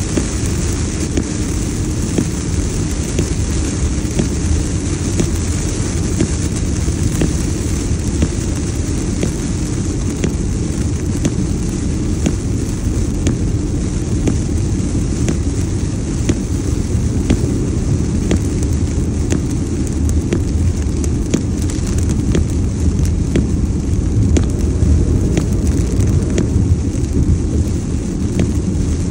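Heavy rain pelting a car's windshield and roof as many small ticks, over a steady low rumble of tyres on the wet highway and wind, heard from inside the cabin.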